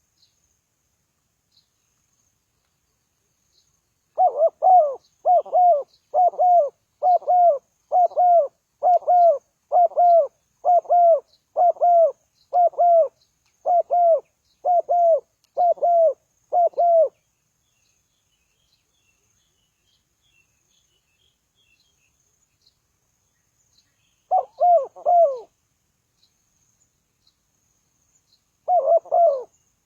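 Spotted dove cooing: a long run of about fourteen evenly spaced low coos lasting some thirteen seconds, then a short burst of two or three coos about twenty-four seconds in, and another starting near the end.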